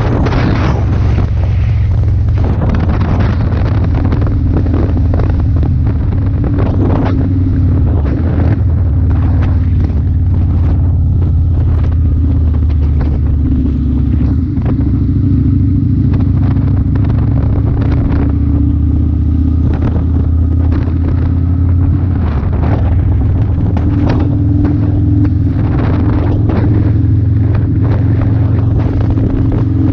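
Motorcycle engine running at a steady cruise, its pitch holding with only slight shifts. Wind buffets the microphone in repeated gusts.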